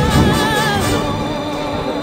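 Background music with singing; a wavering held melody line ends about a second in.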